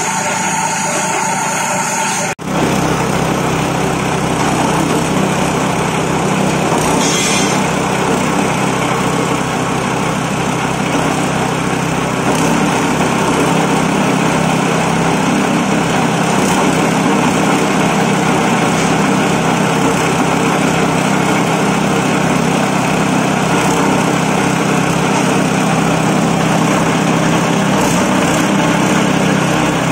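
Straw and coconut-husk chopper machine running steadily, a constant mechanical drone with a low hum. About two seconds in the sound briefly drops out and comes back, as at an edit.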